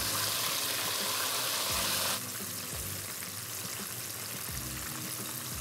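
Cornstarch-coated chicken wings deep-frying in a pot of hot oil, a steady sizzle: the second, hotter fry that crisps the skin. The sizzle drops a little in level about two seconds in.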